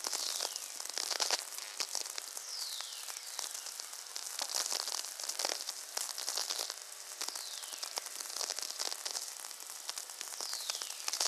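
Very-low-frequency natural radio turned straight into sound: a dense crackle of sferics, the radio clicks from distant lightning, with patches of high hiss. About four falling whistles sweep down in pitch, the whistlers that lightning signals make after travelling along the Earth's magnetic field.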